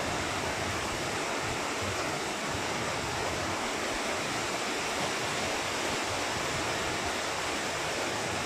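Steady rushing noise of an electric stand fan's airflow, with a fluttering low rumble like wind on the microphone.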